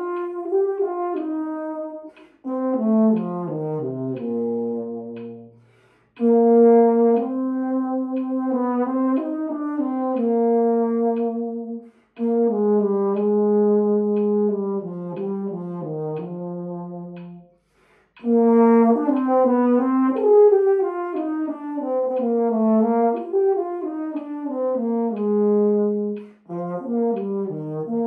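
Unaccompanied marching baritone, a bell-front brass horn, playing a solo melody in several phrases, with short breaks for breath between them.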